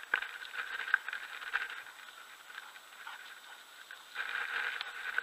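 Faint rustling and scattered small clicks from the shooter's movement and gear handling as he swings up, getting a little louder about four seconds in.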